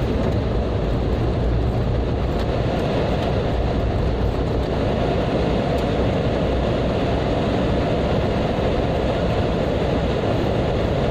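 Steady rumble and hiss inside a car driving slowly along a waterlogged, rain-soaked road: engine and tyre noise through standing water.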